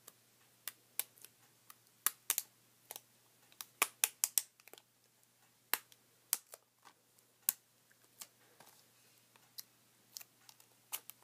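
Fingernails picking at a sticker on a plastic Blu-ray case: irregular sharp little clicks, most frequent about two to five seconds in.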